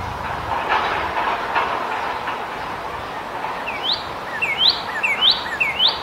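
Male northern cardinal singing: in the second half, a quick run of four whistled notes, each sliding sharply upward and followed by a short lower note. Behind it runs a steady background noise.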